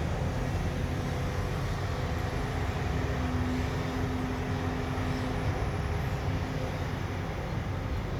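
Heavy construction machinery running: a steady low engine rumble, with a faint steady whine from about a second and a half in until about five and a half seconds.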